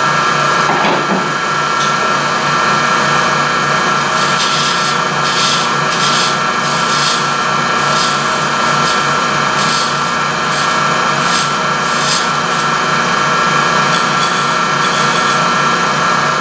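Wood lathe running steadily while a turning tool cuts the spinning wooden blank, the tool scraping in short repeated passes over the motor's hum.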